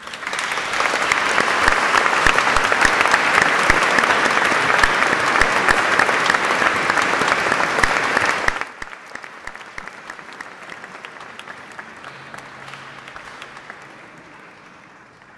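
Audience applauding, loud for about eight and a half seconds, then dropping suddenly to quieter clapping that fades away near the end.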